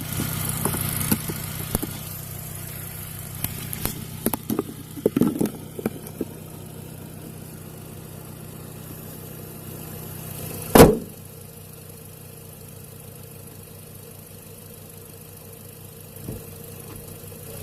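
Turbocharged 1.8-litre four-cylinder engine of a Seat Ibiza Cupra idling steadily, heard from inside the air intake box. Scattered clicks and knocks come in the first six seconds, and one loud thump about eleven seconds in.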